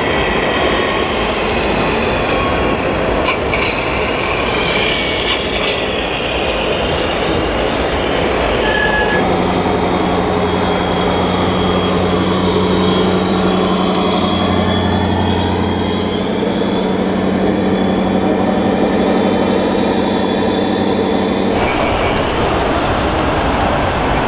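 Scale RC trucks running with their electronic engine-sound units, giving a steady diesel-like hum over a constant hall din. The hum changes abruptly about nine seconds in and again near the end.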